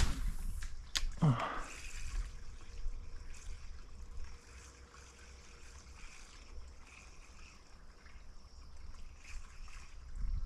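Water trickling and lapping among rocks over a steady low rumble. Two sharp clicks and a short falling sound come in the first second or two.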